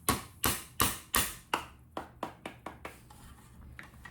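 Sharp repeated taps of a punch driving the abutment washer out of a Daisy air rifle's air tube, about three a second. After about two seconds they turn lighter and quicker, then die away.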